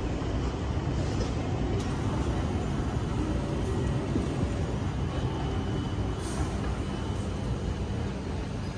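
Street ambience: a steady low rumble of traffic.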